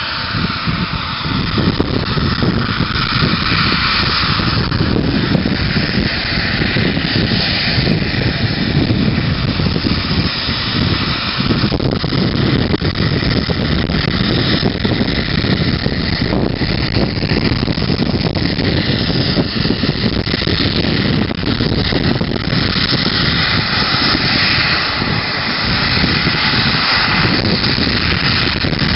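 The twin rear-mounted turbofan engines of a Bombardier CRJ regional jet running at taxi power as the jet rolls slowly: a steady, even jet noise.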